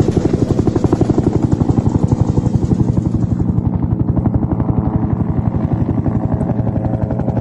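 Helicopter rotor beating steadily, about ten beats a second.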